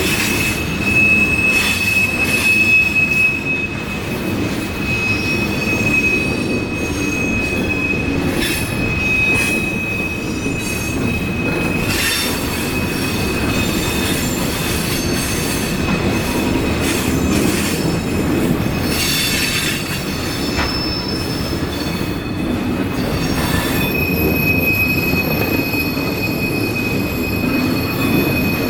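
Coal train's freight cars rolling by on the rails with a steady rumble. A thin, steady, high wheel squeal runs through the first dozen seconds, stops, and returns near the end. A few sharp metallic clanks sound around the middle.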